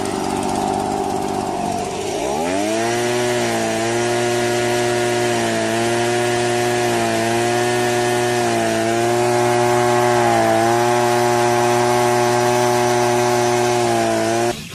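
Handheld leaf blower's small engine running low, then revving up about two seconds in and holding a steady high-speed drone that wavers slightly, until it cuts off suddenly near the end.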